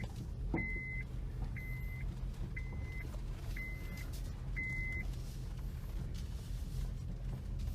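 Six short electronic beeps at one steady pitch, about one a second, stopping about five seconds in, over a steady low rumble.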